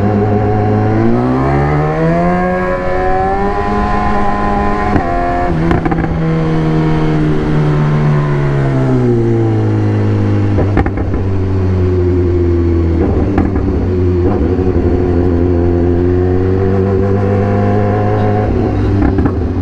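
BMW S1000R motorcycle's inline-four engine on the move. The revs rise over the first few seconds, drop suddenly about five seconds in as it shifts, hold, then fall away as it slows and settles into a steady low-rev run. There are a few short crackles as it eases off.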